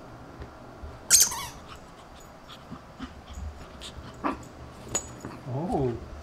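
Shih Tzu puppy vocalising in play: one sharp, high-pitched yip about a second in, a few light clicks, and a short whine that rises and falls in pitch near the end.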